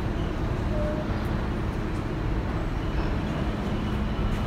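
Steady urban waterfront ambience: a low, even rumble with a constant engine-like hum underneath.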